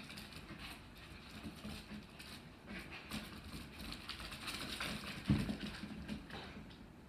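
Two small dogs playing rough on a hardwood floor: their claws patter and skitter as they scramble and scuffle, with a single louder thump about five seconds in.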